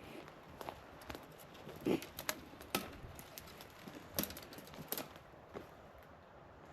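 Footsteps on the forest floor: an irregular string of faint sharp cracks and crackles from twigs and dead leaves underfoot, the loudest about two seconds in and again a little later.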